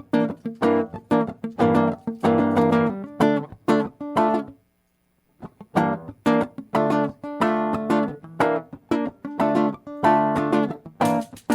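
Instrumental intro of a band's song, led by a strummed acoustic guitar playing a rhythmic groove. The strumming breaks off for about a second partway through, then picks up again, and sharp percussion joins near the end.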